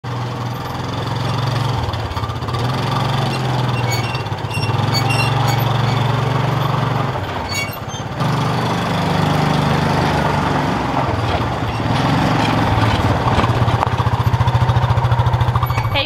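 Small utility vehicle's engine running steadily, growing louder toward the end as it drives closer.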